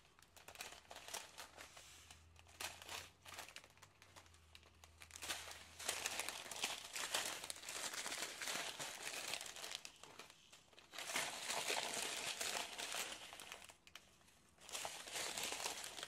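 Crinkling of a strip of small plastic drill bags of diamond-painting drills being handled, in several bouts with short pauses.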